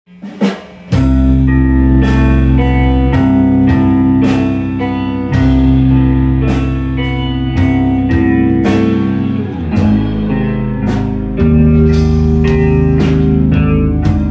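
Live rock band playing loud through amplifiers: electric guitars holding long, heavy chords over a drum kit with steady cymbal hits. The full band comes in suddenly about a second in.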